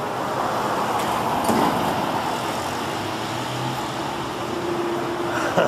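Street traffic: cars and small motorcycles passing and running, a steady hum of engines and tyres, with a brief sharp sound near the end.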